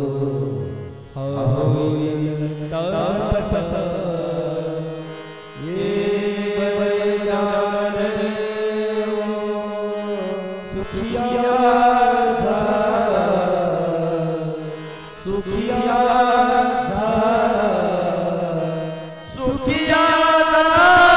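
A man's voice singing a slow devotional chant through a microphone, in long drawn-out phrases with short breaths between them about every four to five seconds.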